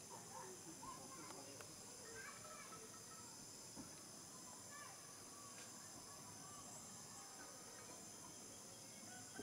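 Faint outdoor ambience: a steady, high-pitched insect chorus, with a few faint short calls scattered through it.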